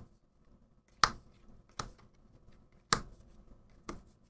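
Four short, sharp snaps of Magic: The Gathering cards being handled and laid down one by one while they are sorted into piles.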